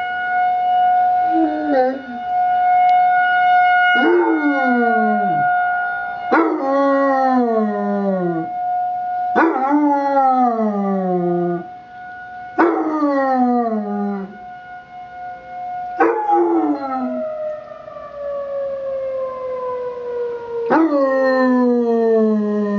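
Basset hound puppy howling about six times, each howl starting high and falling in pitch, along with an emergency warning siren. The siren holds one steady tone, then winds down, its pitch sliding lower over the last several seconds.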